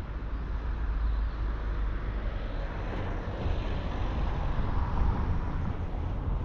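Street traffic noise that swells as a vehicle passes, from about three to five seconds in, over a steady low wind rumble on the microphone.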